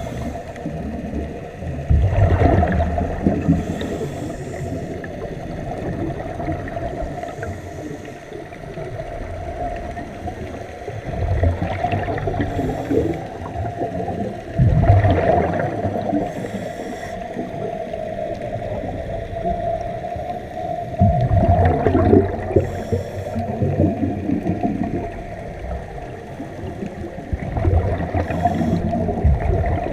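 Scuba diving underwater: regulator breathing, with exhaled bubbles gurgling out in loud bursts every five to seven seconds, over a steady hum.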